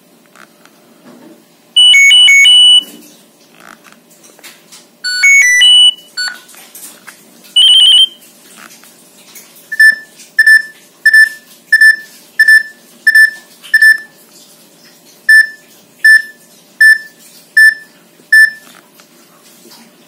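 Nokia 3230 mobile phone's loudspeaker playing short previews of its built-in alert tones. First come a few brief electronic alarm-tone bursts, then a series of short single-pitch beeps about every two-thirds of a second.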